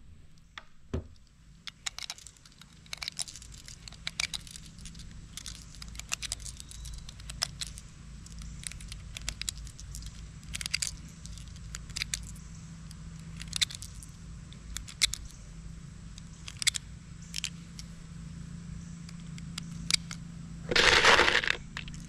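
9mm cartridges being pressed one at a time into a pistol magazine: irregular sharp clicks, one or two a second. Near the end, a louder burst of noise about a second long.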